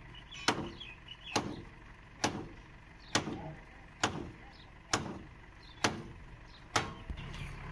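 Hammer blows striking the wooden beams of an old truck body as it is knocked apart, eight sharp strikes at an even pace of about one a second, each with a short ring.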